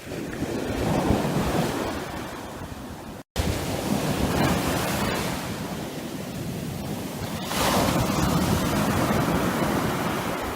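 Gulf of Mexico surf washing up a sandy beach, waves swelling and breaking every few seconds, with wind buffeting the microphone. The sound cuts out for an instant about three seconds in.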